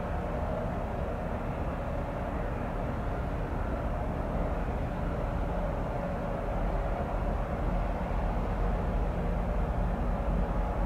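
Steady drone of ship diesel engines from a harbour tug working at a large container ship's stern, a low rumble with a constant hum over it, growing slightly louder in the second half.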